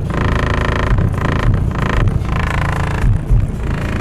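Loud bass-heavy music played through an 18-inch DC Audio XL subwoofer, heard inside the car, with the low notes pulsing strongly and the sound thick and distorted at the microphone.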